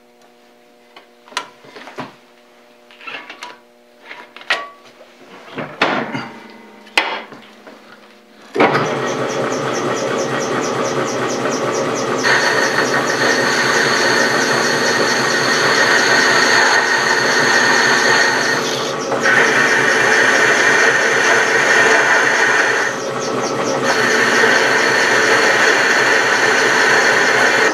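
A few clicks and knocks, then about eight and a half seconds in a high-speed steel parting tool bites into a metal shaft turning in a South Bend 13-inch lathe and cuts a groove. The cut is a loud, steady grinding noise with a high ringing whine that shifts in level a few times as the tool is fed in.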